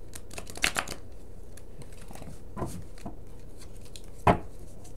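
A deck of tarot cards being shuffled and handled by hand: a few soft, short card snaps, then a single louder knock a little after four seconds in.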